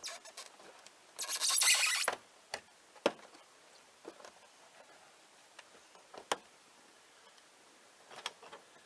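A knife scraping and cutting along the RV side wall to free the old compartment door: one loud rasping scrape of about a second, then a few separate sharp clicks and taps.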